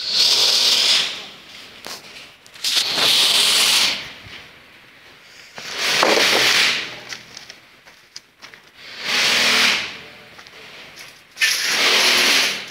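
Repeated bursts of hissing, each about a second long, coming roughly every three seconds with quieter gaps between.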